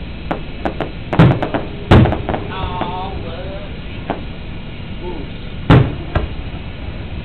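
Distant fireworks shells bursting: three loud booms, two close together about a second in and one near the end, with fainter pops between.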